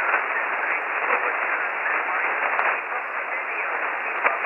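Ham radio transceiver receiving a single-sideband voice signal on the 20-meter band: a steady hiss of band noise with a weak voice of a distant station in it, thin and telephone-like. The band is rough, with signals fading deeply.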